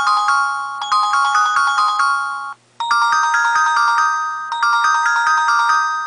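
A mobile phone ringtone playing: a short, quick melody that repeats about every 1.7 seconds, with a brief break about two and a half seconds in.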